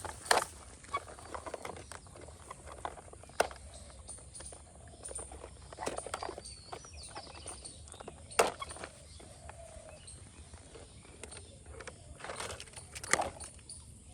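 Scattered light clicks and knocks of small plastic toys and balloons being handled and set down, with a brief faint squeak about seven seconds in.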